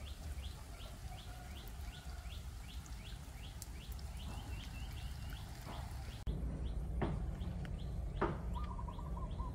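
Small birds chirping: a quick, steady series of short, high, rising chirps, several a second, over a low rumble. About six seconds in the chirping thins out, and a short, lower warbling trill comes in near the end.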